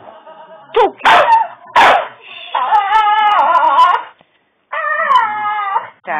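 Staffordshire bull terrier whining to beg for treats: a few short, sharp yelps in the first two seconds, then two long, drawn-out whines that waver up and down in pitch.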